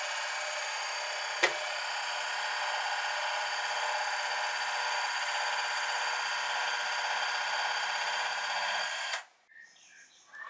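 Small electric motor and gears of a 1:14 scale RC tipper truck running steadily with a whine, with a single sharp click about a second and a half in. It cuts off suddenly near the end.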